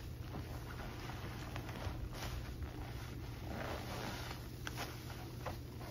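Rubber-gloved hands squeezing soapy sponges in a basin of suds: wet squelching and crackling foam, a longer squish about four seconds in as a sponge is wrung in the fist. A steady low hum lies underneath.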